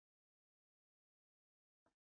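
Near silence: the sound track is digitally silent, with only a very faint short click near the end.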